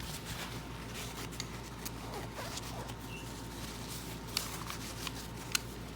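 Scattered faint clicks and light handling noise over a steady low hum.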